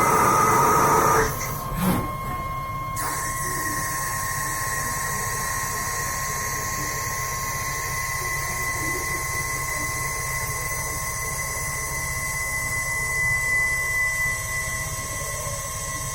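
CNC turning-milling machine at work on brass, running with a steady high whine. A louder stretch of cutting noise fills the first second or so, and a short knock comes about two seconds in.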